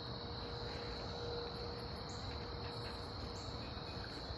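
A steady high-pitched insect chorus, with a low rumble of background noise underneath.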